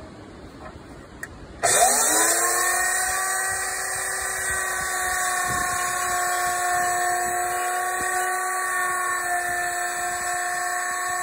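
Electric router in a benchtop router table switched on about two seconds in, spinning up quickly to a steady high whine, running a bearing-guided rabbeting bit as a wooden frame strip is fed past it to cut the rabbet.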